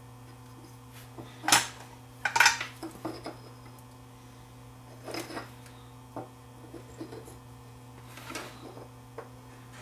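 Scattered light metallic clinks and taps of a soldering iron and small parts being handled while a capacitor is soldered back onto a compact fluorescent bulb's ballast board. The loudest two come about one and a half and two and a half seconds in, over a steady low hum.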